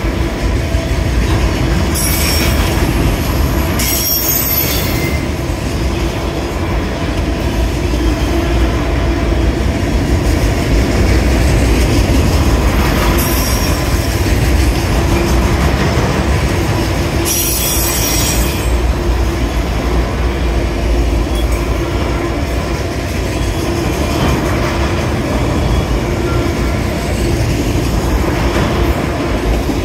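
Autorack freight cars rolling past close by, their steel wheels on the rails making a steady heavy rumble. Several brief high-pitched wheel squeals ring out over it, the strongest about two-thirds of the way through.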